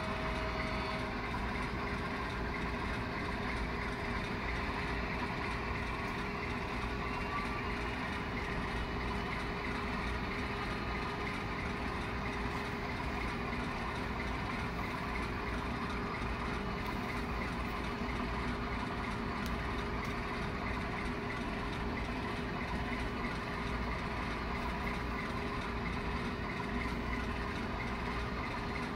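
Steady diesel locomotive engine sound from a model railway's sound-equipped locomotives, running evenly without change.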